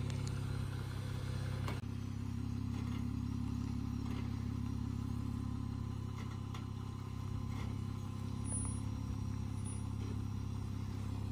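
Jeep Wrangler Willys engine running steadily at low revs while crawling over rocks, with a light knock about two seconds in.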